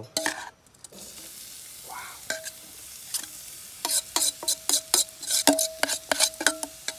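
Freshly ground shallot and garlic sizzling in hot oil in a pan, stirred with a spatula. From about four seconds in, the spatula clicks and scrapes against the pan in quick strokes, louder than the sizzle.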